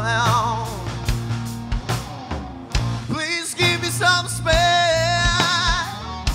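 Rock band playing live: a lead singer sings over electric guitar, bass guitar and drums, holding one long note with a wide vibrato about two thirds of the way through.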